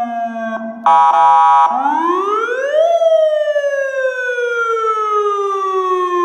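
Electronic vehicle siren cycling through its tones: a slowly falling wail breaks off, a loud, steady horn-like blast sounds for under a second, then the pitch rises for about a second and falls slowly again in a long wail.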